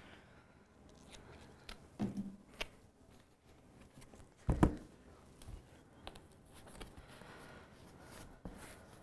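Quiet rustling and clicking of duct tape being pulled and pressed by hand onto a cardboard lid and the cardboard frames of air filters, with two dull thumps, the louder about four and a half seconds in.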